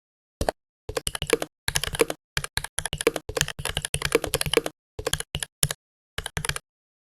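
Simulated mechanical-keyboard typing from the Mechvibes sound software, set to its EG Oreo switch sound pack: a single keystroke, then fast runs of clacking keystrokes broken by short pauses, thinning out to a few key presses near the end.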